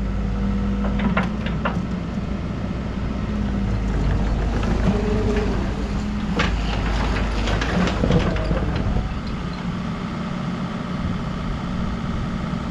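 Bobcat E50 mini excavator's diesel engine running steadily, with several sharp metallic knocks and a short whine that rises and falls about five seconds in.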